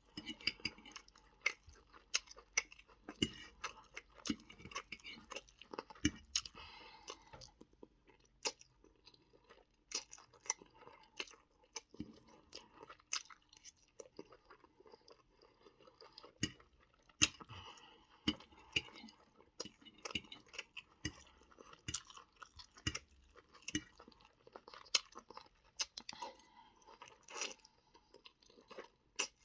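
A person chewing food, mouth sounds with many irregular sharp clicks.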